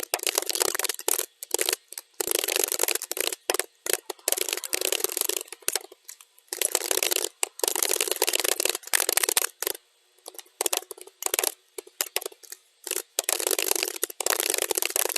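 Keyboard typing played at double speed: dense runs of rapid key clicks, broken every second or two by short pauses, with a longer pause about ten seconds in.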